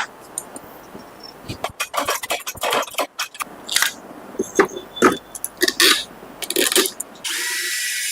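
Irregular clicks, knocks and scrapes of small hard parts being handled and worked on during a table fan repair, with a steady hiss near the end.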